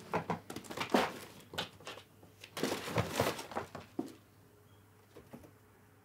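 Kittens romping on a fabric cat bed: a quick run of scuffling, thumping paw and body hits with some crinkling, lasting about four seconds.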